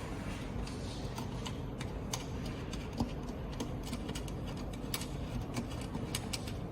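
Light, irregular clicks and taps of plastic wiring connectors and cables being handled, several close together at times, over a steady low background hum.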